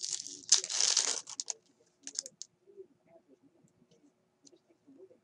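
Foil wrapper of a 1999-2000 Fleer Force basketball card pack being torn open, a loud crinkling rip for about the first second and a half. After that come faint clicks and rustles as the cards are slid through the hands.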